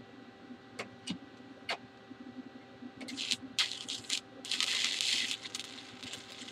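Stick welding with a 3/32-inch Lincoln Excalibur 7018 electrode at 88 amps, tacking steel plate. A few sharp ticks come first. About three seconds in, the arc catches and crackles and sputters. It is loudest around the middle of the tack and keeps crackling more quietly.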